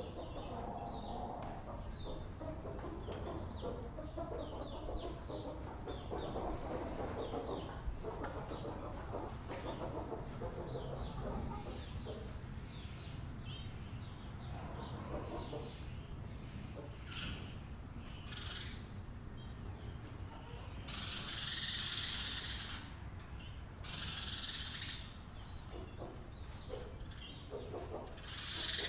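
Chicks peeping in many short high chirps, with lower calls from a hen. In the later part, several hiss-like noise bursts of a second or two each.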